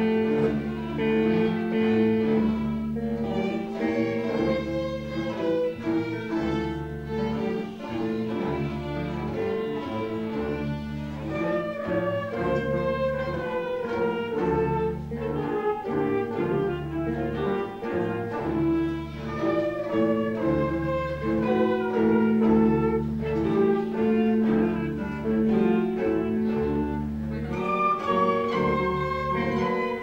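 A school orchestra playing, led by violins and cello: a low bass note pulses about once a second under held chords, while the melody steps downward in long phrases.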